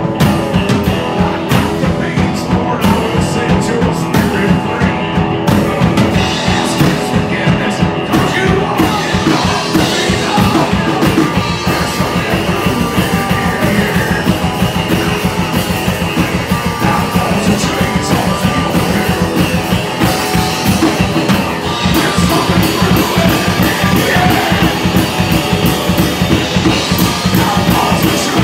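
Live rock music from a two-piece band: a drum kit keeping a steady, driving beat under electric guitar, loud throughout.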